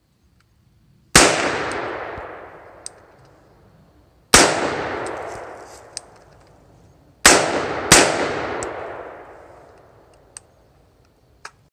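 Diamondback AR-15 semi-automatic rifle fired four times, each shot trailing off in a long rolling echo; the last two shots come less than a second apart. A few faint clicks sound between the shots.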